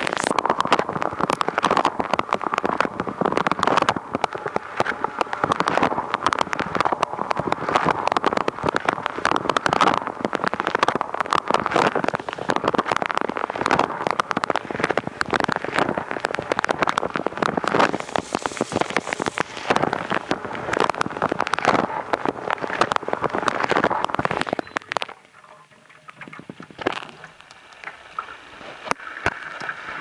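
Water jets of a Haier countertop dishwasher spraying and splashing straight onto a waterproof camera riding inside the wash tub: a dense spatter like heavy rain on a surface. The spray cuts off suddenly about 25 seconds in, leaving only faint knocks.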